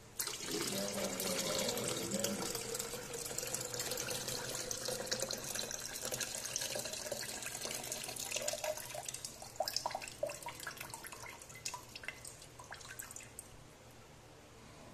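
A stream of water pouring into a container, starting abruptly. After about eight seconds it breaks up into separate drips and trickles, which thin out toward the end.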